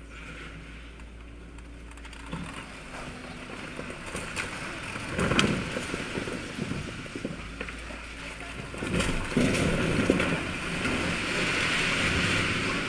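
Excavator demolishing a brick building: its engine running while masonry crashes down, with loud crashes about five seconds in and again around nine to ten seconds, then a longer spell of falling rubble near the end.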